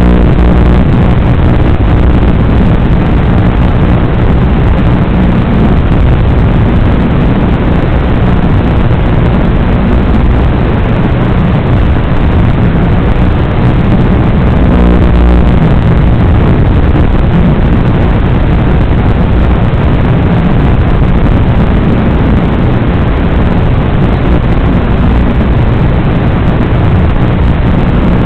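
Loud, steady, rough noise from a radio-controlled electric Formula 1 car as heard by its own onboard microphone: low chassis and drivetrain rumble with motor noise while it laps, unbroken throughout.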